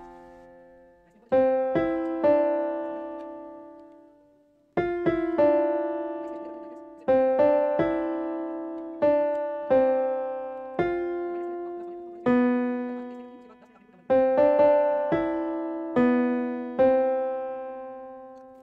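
Background piano music: slow, gentle chords struck every second or two, each note ringing and fading away.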